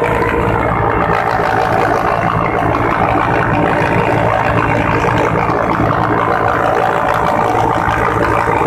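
Helicopter turbine and rotor noise heard from inside the cabin at an open door: a loud, steady drone that does not let up.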